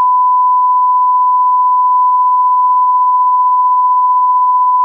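Broadcast test tone that goes with television colour bars: a single pure, steady, high-pitched beep, held unbroken and loud.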